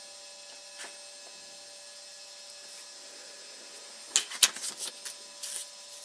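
Paper screens of a paper phone prototype being handled and swapped: a short burst of rustling and tapping about four seconds in, over a steady electrical hum.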